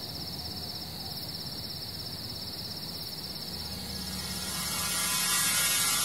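Crickets chirping in a steady pulsing trill. From about halfway, a hiss and a few thin high steady tones swell up and grow louder underneath them.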